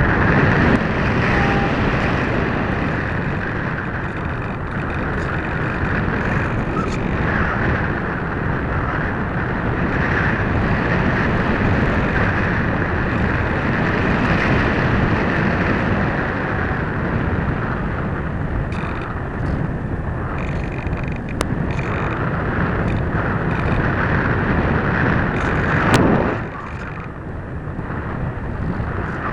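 Steady rush of airflow buffeting the onboard camera's microphone on an RC model plane in flight, with no clear motor tone. The roar swells briefly about 26 seconds in, then drops to a quieter level.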